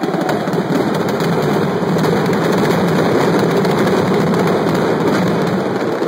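Fireworks going off in a rapid string of bangs and crackles that run together almost without a break.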